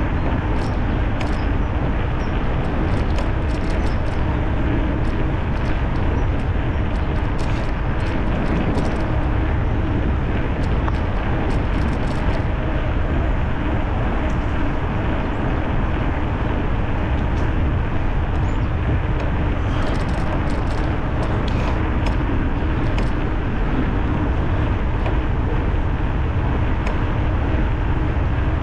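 Steady rushing noise from an electric bicycle ride on a paved riverside bike path: wind buffeting the camera's microphone along with tyre and road noise, heaviest in the low rumble, with a few faint ticks.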